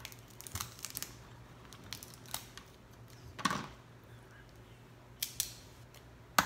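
Cooked snow crab leg shells cracking and snapping as they are broken apart by hand: scattered sharp cracks and small crinkling clicks, the loudest about halfway through and right at the end.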